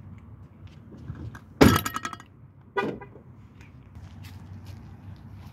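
The front door of a Jeep Grand Cherokee SRT8 is shut with a loud thud about a second and a half in, with a short ringing tail. A lighter knock follows about a second later.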